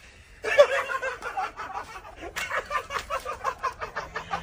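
Laughter, a fast run of short ha-ha sounds that starts about half a second in and keeps going.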